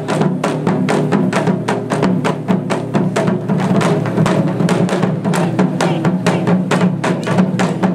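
Japanese taiko drums beaten with sticks by an ensemble, a fast, steady run of strikes, several a second.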